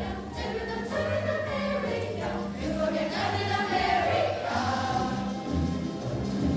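A school choir of young voices singing together over a steady low accompaniment, swelling to its loudest about four seconds in.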